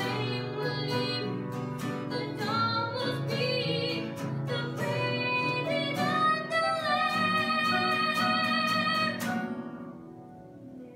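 A young woman singing a Christmas hymn solo over an instrumental accompaniment. She holds one long note before her voice stops, leaving only the quieter accompaniment near the end.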